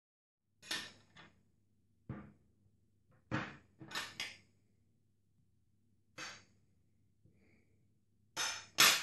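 Bananas, a white plate and a table knife handled on a table: a series of short knocks and clatters, about nine in all, the last two the loudest.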